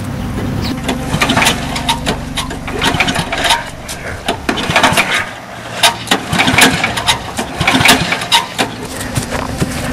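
Riding lawn mower's small engine running, broken through the middle by a run of sharp clanks and knocks before the steady drone settles again near the end.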